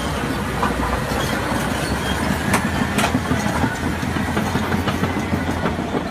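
A heavy vehicle running with a steady rattling rumble, and two sharp clanks about two and a half and three seconds in.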